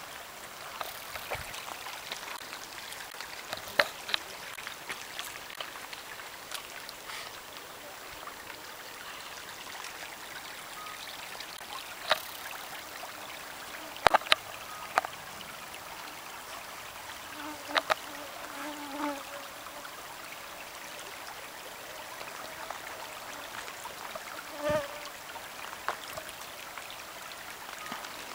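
Steady outdoor background hiss, broken by a few sharp clicks and taps and a couple of brief faint hums.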